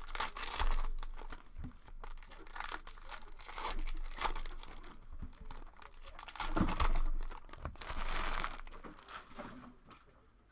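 Plastic trading card pack wrappers being torn open and crinkled by hand, in irregular crackling bursts.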